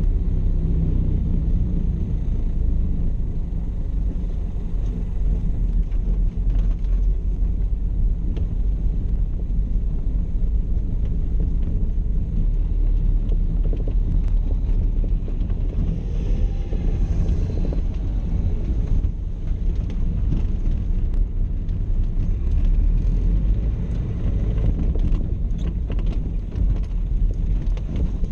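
Four-cylinder Burtz engine of a 1931 Model A Ford under way, a steady low rumble with road noise. About two-thirds of the way through, a brief whine rises and falls.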